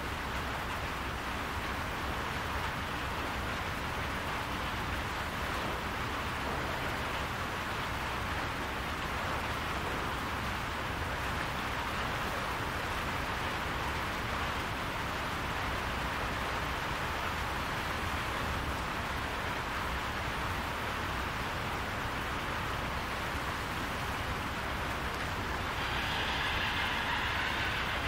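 Steady rain falling on a barn roof, a dense, even hiss that grows slightly louder and brighter near the end.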